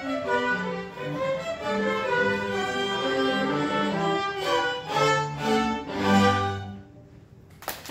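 A string chamber ensemble of violins, cellos and double bass plays a classical piece in moving and held notes. It closes on a final chord about six and a half seconds in, followed by a brief hush.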